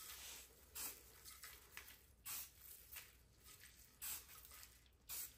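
Aerosol spray paint can giving several short, faint hisses about a second apart, spraying paint over dry grass laid on a rifle as a camouflage stencil.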